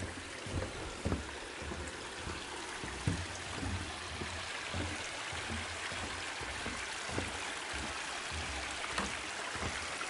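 Shallow rocky mountain stream trickling and running over stones: a steady, even rushing hiss. Soft low thumps come now and then, mostly in the first half.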